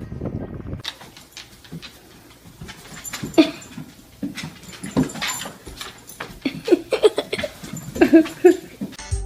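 A dog whimpering and yipping in a series of short whines, several coming in quick succession near the end.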